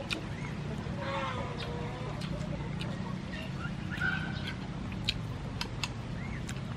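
Chickens clucking, with short sharp clicks scattered throughout, over a steady low hum.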